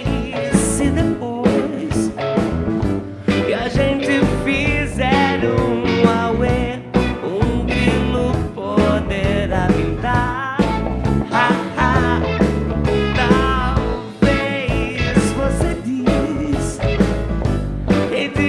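Psychedelic rock song playing, with a steady drum beat under bass and guitars.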